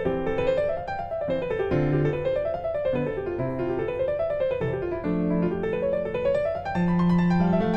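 Background piano music: quick runs of notes rising and falling in repeated arcs over held bass notes.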